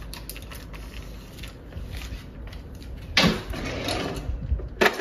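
Kitchen drawer being opened and rummaged, with utensils rattling about three seconds in and a sharp knock just before the end, over a low steady hum.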